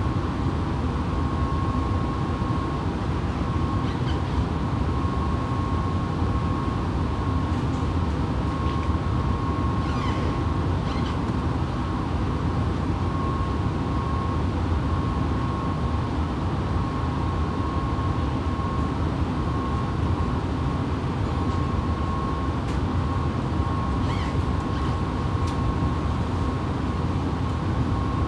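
Fukuoka City Subway 2000-series car standing still at a platform, its onboard equipment giving a steady low hum and rumble. A thin whine near 1 kHz keeps cutting in and out.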